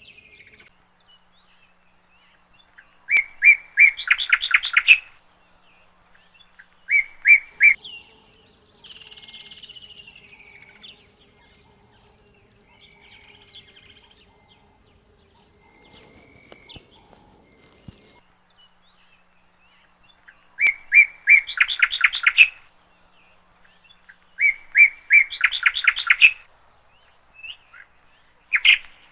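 A songbird singing loud repeated phrases, each a few sharp notes running into a fast trill, about five times with pauses of several seconds between them. Softer downward-sliding whistled calls come in between the phrases.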